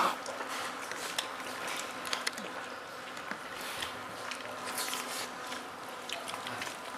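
A faint steady buzzing hum runs under scattered light clicks and rustles of hands and food as people eat with their fingers.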